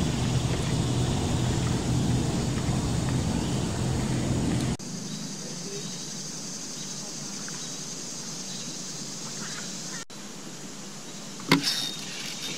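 Low rumbling wind noise on the microphone that cuts off abruptly about five seconds in. Quieter steady outdoor background hiss follows, with one short sharp knock near the end.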